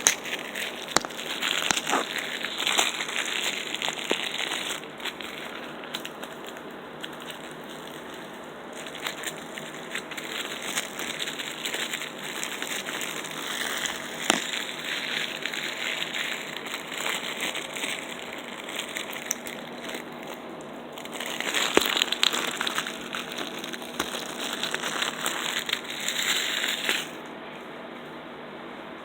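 Plastic packaging crinkling and crackling as it is handled and pulled off, in several busy stretches with short lulls, stopping near the end and leaving only a faint steady hiss.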